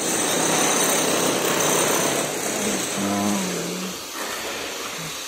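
Demolition power tool running steadily, a continuous mechanical din. A brief voice calls out about three seconds in.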